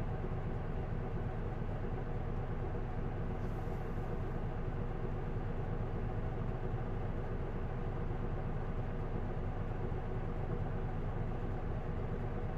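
Isuzu Erga PDG-LV234L2 city bus's six-cylinder diesel engine running steadily, heard from inside the passenger cabin as a constant drone with no rise or fall in pitch.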